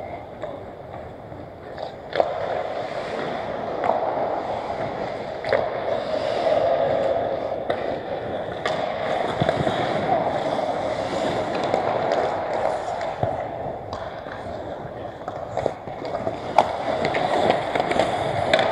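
Pickup ice hockey: a steady scrape and hiss of skate blades on the ice, broken by sharp clacks of sticks and puck striking at irregular moments.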